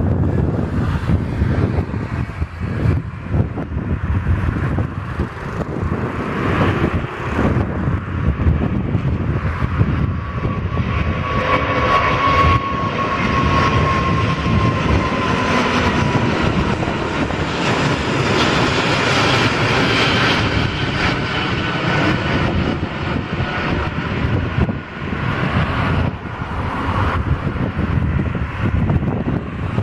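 Airbus A380's four jet engines at takeoff power as the airliner lifts off and climbs away: a loud, steady jet roar, with an engine whine that slides down in pitch about a third of the way in as it passes overhead.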